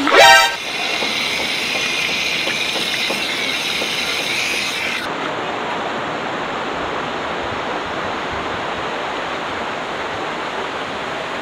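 A boy lets out a short loud yell that rises in pitch, then the steady rush of river water. A high shrill layer sits over the rush and cuts off abruptly about five seconds in.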